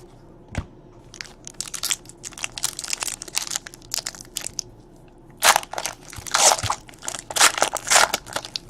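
Trading cards and their plastic or foil packaging being handled: a run of crinkling and crackling rustles, denser and louder in the second half.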